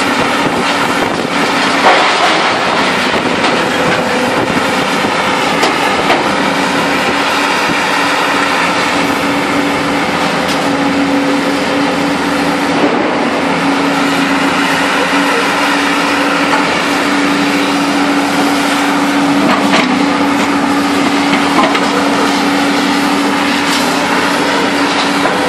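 Heavy scrap-handling machinery running steadily, a diesel engine hum holding one steady low note that grows stronger about ten seconds in, with a few sharp metal knocks.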